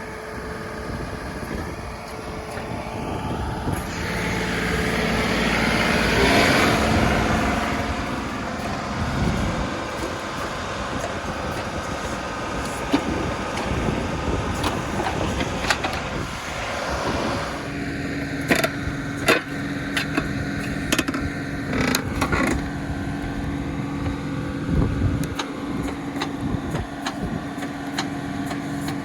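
John Deere 2038R compact tractor's three-cylinder diesel running under load as the 270B backhoe digs at a tree stump. The engine note swells a few seconds in and then settles, and several sharp knocks and clanks come about two-thirds of the way through.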